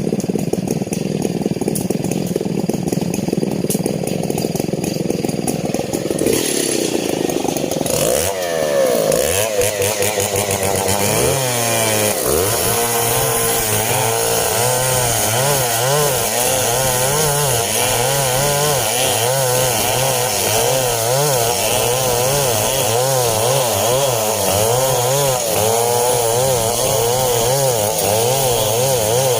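STIHL chainsaw running under load, sawing a coconut palm log. For the first several seconds it holds a steady, dense note. From about eight seconds in, the engine pitch swings up and down over and over as the load on the chain changes.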